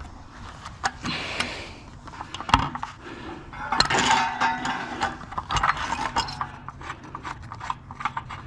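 Hand tools working brass fittings loose from a water heater: a run of metal clicks and knocks with short bursts of scraping, busiest about halfway through.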